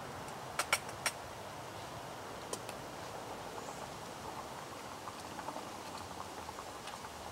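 Wooden spoon knocking and scraping in the metal pot of a Swedish M40 mess kit as rice is stirred. Three sharp clicks come close together about a second in, with another a couple of seconds later and small faint ticks near the end.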